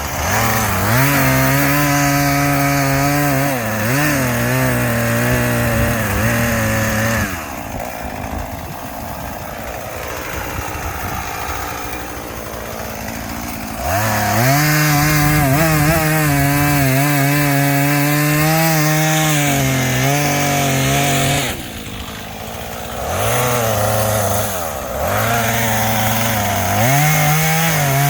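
Chainsaw cutting wood at high revs, the engine note sagging and recovering under load. It eases off to a lower speed several times between cuts, for several seconds about seven seconds in, then revs back up.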